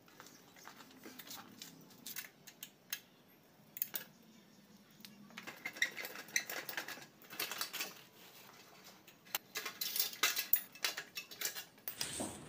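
Metal hand tools clinking and clicking against a bicycle's handlebar stem as it is worked loose, in irregular clusters of sharp clicks that come thickest about halfway through and again near the end.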